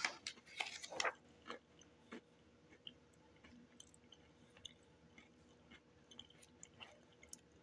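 Faint crunching of crackers being chewed: a string of small crisp crackles, denser in the first second or so, then sparse.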